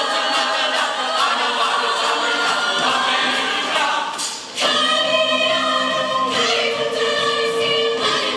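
Show choir singing loud, full chords, with a brief break about halfway through. The choir then comes back in and holds a long sustained note near the end.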